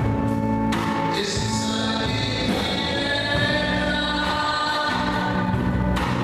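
A gospel praise song: a choir singing held notes over instrumental backing, with cymbal-like crashes about a second in and near the end.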